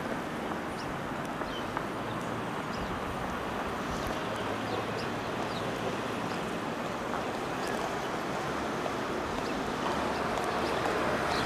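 Steady outdoor background rush of distant traffic and wind, with a few faint, short, high bird chirps.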